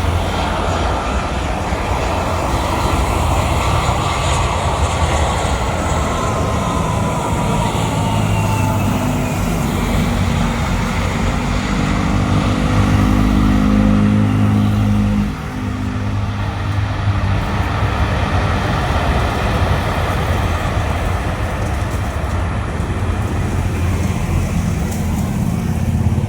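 Jet airliner's engines passing close by: a loud rumble with a whine that falls slowly in pitch as the aircraft goes past. About fifteen seconds in the sound drops suddenly, then a steady rumble continues.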